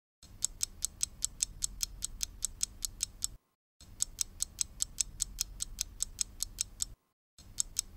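Countdown clock-ticking sound effect: fast, even ticks about six a second, stopping for a moment twice.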